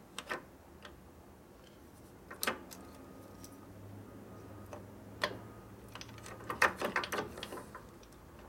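Scattered light metal clicks and knocks as an electric-starter shift fork is worked by hand against the starter pinion and housing, with a quick run of sharper clinks about six to seven seconds in.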